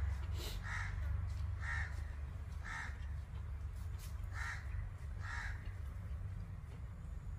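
A crow cawing, a run of short harsh calls about one a second with a brief pause midway, over a steady low rumble.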